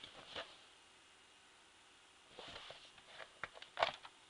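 Hands handling and opening a plastic DVD keep case: a click, a short rustle about two and a half seconds in, then several sharp clicks near the end.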